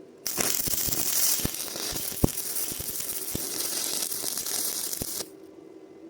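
Stick-welding arc on rebar, crackling and sizzling with scattered sharp pops for about five seconds. It starts abruptly as the arc is struck and cuts off suddenly when the arc is broken.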